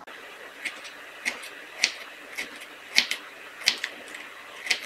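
Kitchen knife slicing fresh pineapple into small pieces on a wooden cutting board: light, sharp taps as the blade cuts through and meets the board, irregular, about two a second.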